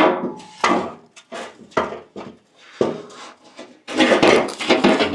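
A truck's unbolted inner fender being worked loose and pulled out of the wheel well: a string of knocks, clunks and short scrapes, with a longer stretch of scraping and rubbing about four seconds in.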